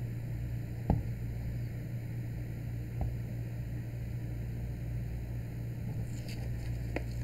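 A few light clicks and ticks of a thin metal precision tool against the metal parts of a camera lens being taken apart, the sharpest about a second in, a weaker one about three seconds in and a few faint ones near the end, over a steady low hum.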